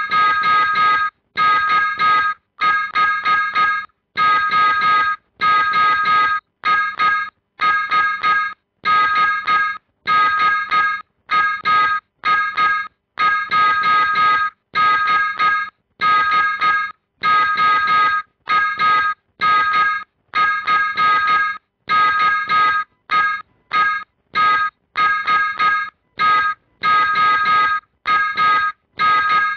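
Morse code sent as a keyed beep tone: short and long beeps of one steady pitch separated by silent gaps, a signal for receiving practice.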